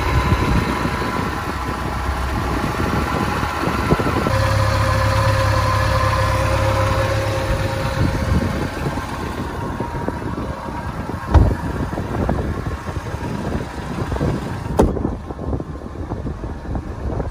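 3.0-litre MerCruiser inline four-cylinder boat engine idling steadily just after a warm start, turning over cleanly. Two sharp knocks come later, and after the second the engine sounds duller.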